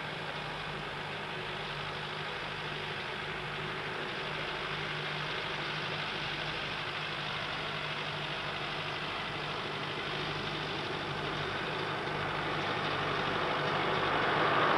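Ford 7710 tractor's diesel engine running steadily while pulling a New Holland 644 round baler, with a constant low hum, growing louder over the last few seconds.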